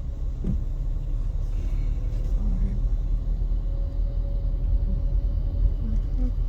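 Car driving slowly, with a steady low rumble of engine and tyres heard from inside the cabin, and a faint knock about half a second in.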